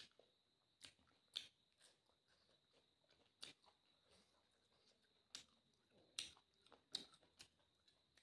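Quiet eating sounds from eating by hand: short wet clicks and smacks of mouth and fingers, about a dozen scattered irregularly through.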